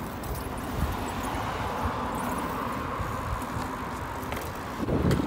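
Steady rushing street noise of bicycles rolling on asphalt, with a low rumble of wind on the microphone that swells near the end.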